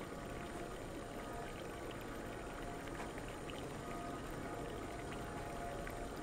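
Steady outdoor city ambience: an even hiss with a few faint scattered ticks.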